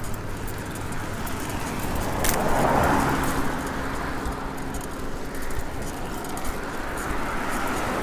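Cars passing along the road close by, one swelling to its loudest about three seconds in and another approaching near the end, with a single sharp click just after two seconds.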